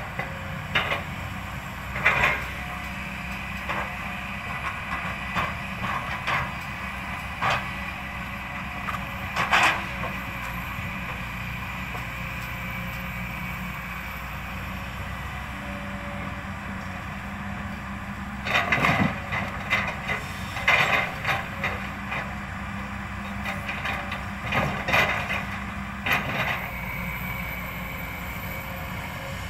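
Kobelco SK200 excavator's diesel engine running steadily as its grab handles logs, with sudden wooden knocks and clatters of logs striking each other and the truck's load, the busiest spell about two-thirds of the way through.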